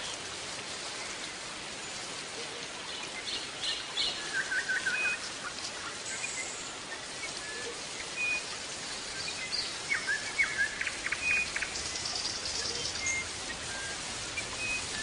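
European goldfinch of the large 'major' race singing: scattered short chirps, a brief trill and rapid twittering notes over a steady hiss.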